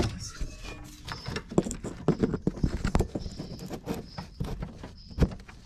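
Irregular knocks, clicks and rattles of parts being handled and pushed into place under a car while fitting a fuel tank's hose and fuel-line connections, with a sharper click about five seconds in.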